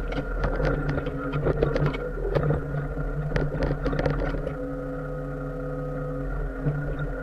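Mini excavator's diesel engine running steadily under load with a steady hydraulic whine, with scattered knocks and scrapes over the first four seconds or so, then a steadier stretch.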